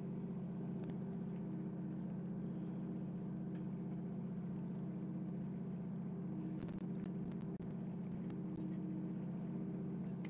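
A fishing boat's engine running steadily, a low even drone, with a few faint clicks over it.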